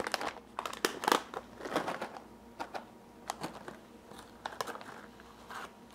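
Plastic pouches of baking chips crinkling and rustling as they are handled and reached into, in short irregular rustles and clicks, busiest in the first two seconds.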